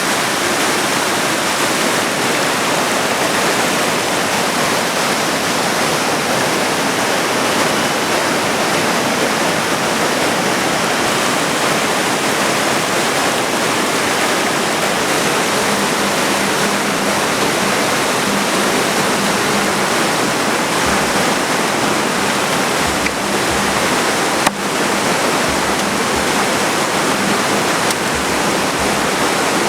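Fast-flowing mountain river rushing, a loud, steady wash of water.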